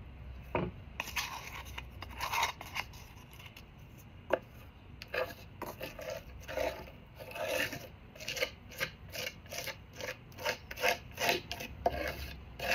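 Metal palette knife scraping and spreading thick chalk-and-glue gesso (levkas) over a wooden panel. A few scattered strokes at first, then quicker repeated strokes, about two to three a second, from about five seconds in.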